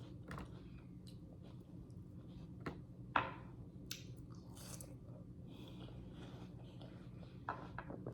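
Close-up chewing and biting of juicy fruit, with wet smacks and small crunches, the sharpest about three seconds in.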